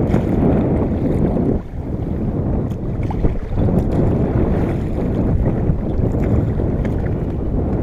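Wind buffeting the microphone of a camera on a fishing kayak at sea: a steady low rumble that briefly lulls about one and a half seconds in.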